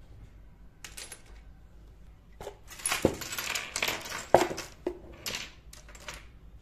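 Miniature ceramic pots, plates and bowls clinking and rattling against one another as pieces are set down into a heap and picked out of it. A short rattle comes about a second in, then a dense run of clinks through the middle with two sharper knocks, and a few more clinks near the end.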